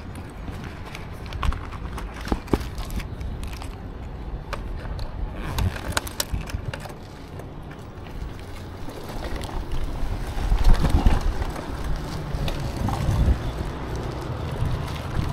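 Riding an electric scooter: wind on the microphone and road rumble, with scattered rattling clicks and a louder surge of rumble about ten seconds in.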